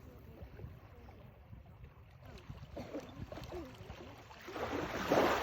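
Small sea waves lapping on a sandy beach. Near the end a wave breaks and washes up the shore, the loudest sound.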